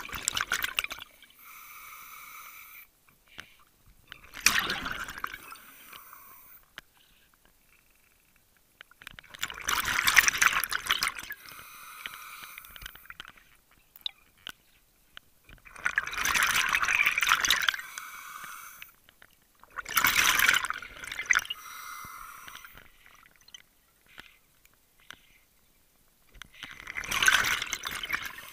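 Water rushing or splashing in repeated surges of a second or two each, several seconds apart, with fainter sound between.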